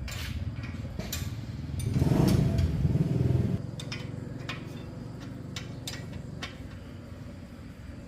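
An engine running with a low, steady pulse, growing louder for about a second and a half around two seconds in, with scattered light clicks.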